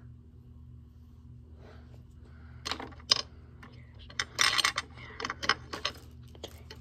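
Handling noise: a run of sharp clicks and clatters of small hard objects being picked up and moved, starting a few seconds in, with a short rattling burst around the middle.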